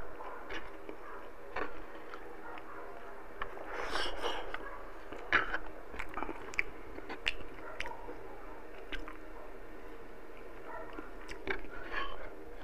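Close-miked mouth sounds of eating braised pork afritada and rice by hand: chewing with scattered wet smacks and clicks, busiest around four seconds in. A faint steady hum runs underneath.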